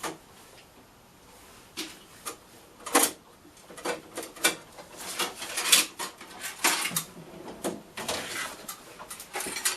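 Irregular clinks and rattles of metal tools being handled, as drill bits are sorted through to find a 5/16 inch drill. It is fairly quiet for about the first two seconds, then the clicks come unevenly, with sharper knocks around three and six seconds in.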